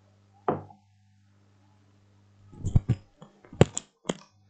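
A sharp knock about half a second in, then a quick run of knocks and clinks from about two and a half to four seconds in, as things are moved about close to the microphone.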